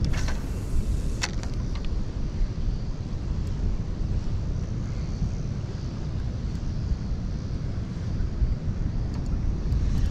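Steady low wind rumble buffeting the camera microphone, with a few sharp clicks in the first two seconds.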